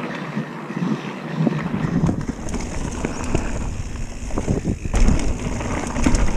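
Wind rushing over the microphone of a riding mountain biker, with a low buffeting rumble building from about a second in, and tyre and frame noise with scattered knocks as the bike rolls over the trail.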